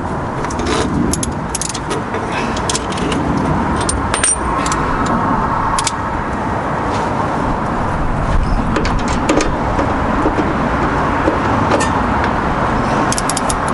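Wrench working the nut on a sway bar end link: irregular metallic clicks and clinks over a steady rushing background noise.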